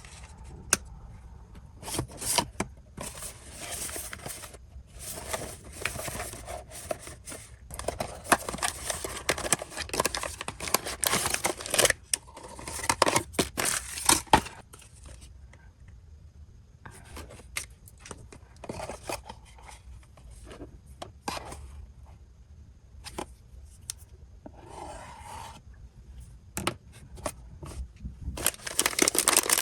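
Blind box packaging being opened by hand: irregular bursts of tearing and crinkling wrapper with sharp snips and clicks. A sparser stretch of scattered clicks in the middle, then loud continuous crinkling near the end.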